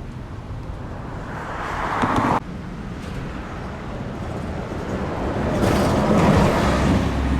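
Road traffic going by: the rushing noise of a passing vehicle swells and cuts off suddenly a little over two seconds in, then another builds to the loudest point near the end.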